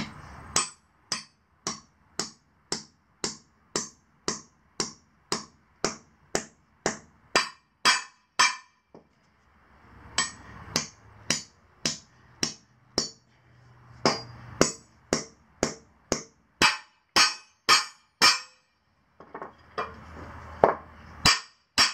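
Small sledge hammer striking half-inch steel tamper-proof anchor bolts, driving them through a steel plate into concrete. The blows are steady, ringing and metallic, about two a second, with short pauses about nine seconds in and again near the end.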